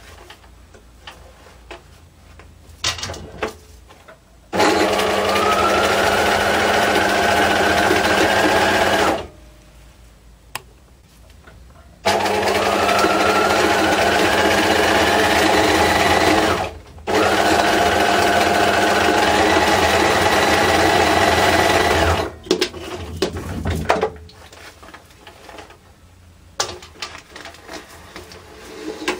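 Bernina electric sewing machine stitching through paper in three runs of about four to five seconds each. Its motor whine rises in pitch as it speeds up at the start of each run, then holds steady. Small handling clicks and rustles fill the pauses between runs.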